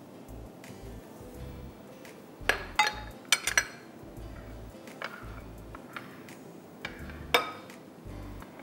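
Glass bowls, jars and kitchen utensils clinking and knocking as they are handled: a quick run of four sharp clinks about two and a half seconds in, then a few single knocks later. Faint background music runs underneath.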